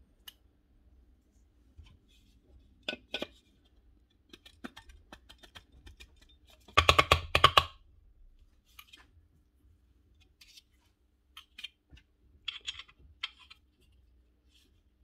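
Clicks, knocks and a short clatter of power-planer parts being handled and fitted together by hand, as an armature and housing covers are set into place. The loudest moment is a quick rattle of several knocks about seven seconds in.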